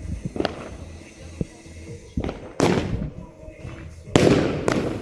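Fireworks going off: a few small sharp pops, then four loud bangs in two close pairs, each with a short rumbling tail.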